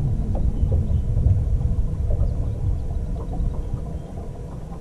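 Wind buffeting the microphone: a steady low rumble, with a few faint small ticks over it.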